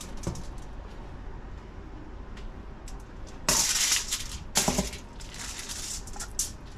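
Kitchen knife scoring cuts into a whole bowfin: light clicking and rattling, with two short, louder scraping sounds about three and a half and four and a half seconds in.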